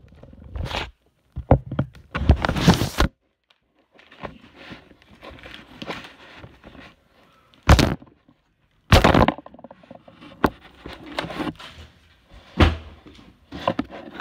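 A desk being broken: sharp knocks and thuds every second or few seconds, with a longer crackling burst about two seconds in and scraping and rubbing between the blows.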